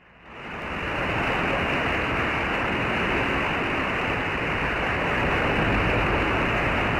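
Steady hiss of open-channel static from a CB radio receiver with no station transmitting, cut off above the radio's narrow audio band. It swells up over the first second and then holds steady.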